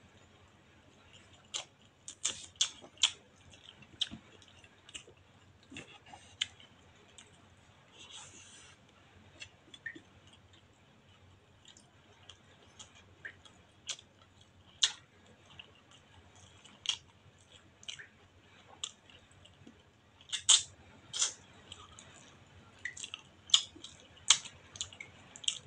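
Close-up mouth sounds of eating soft rice and stewed fish by hand: wet chewing and lip smacks, heard as scattered short, sharp clicks, sometimes several in quick succession, loudest in a cluster near the end.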